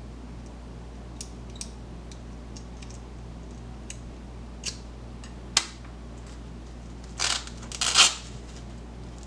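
Sparrows lock picks and tension bar working in a lock: scattered light metal clicks, a sharper click about five and a half seconds in, and a louder burst of scraping clicks near the end.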